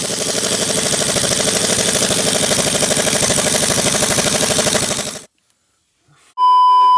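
Pneumatic impact wrench hammering for about five seconds on a stuck fastener that won't break loose, then cutting off. About a second later comes a loud, steady beep.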